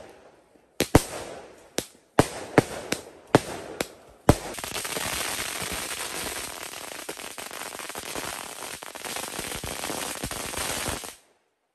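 A string of firecrackers going off on the ground. First come a handful of separate loud bangs, then from about four seconds in a dense, rapid crackle of bangs that cuts off abruptly near the end.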